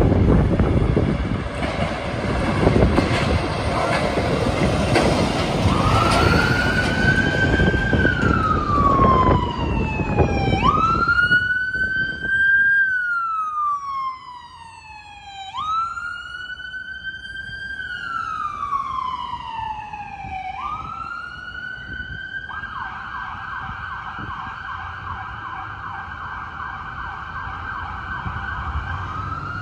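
Fire rescue truck's electronic siren: a slow wail rising and falling about every five seconds, switching near the end to a fast yelp and then back to the wail. Before the siren starts, the first several seconds are a loud rumble of vehicle and street noise.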